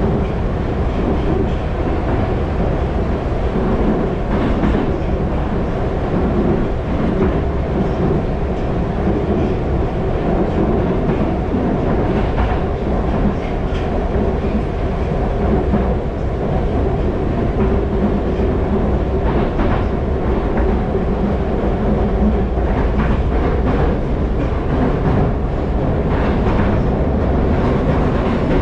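Moskva-2020 metro train running at speed through a tunnel, heard from inside the car: a steady deep rumble of wheels on rail and running gear, with occasional short clicks.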